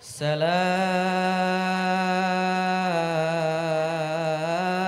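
A young man's solo voice singing a sholawat, an Islamic devotional song, through a microphone, unaccompanied: one long held note that dips slightly in pitch about three seconds in and wavers near the end.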